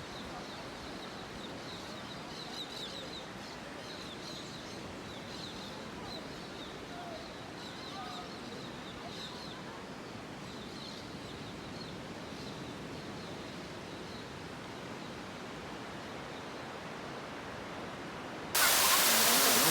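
Quiet outdoor ambience with many short, high bird chirps throughout. About a second before the end it cuts abruptly to the loud, steady rushing of a waterfall.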